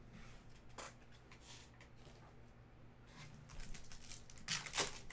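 Foil wrapper of a trading card pack being torn open and crinkled by hand: a few light crackles at first, then a louder burst of crinkling near the end.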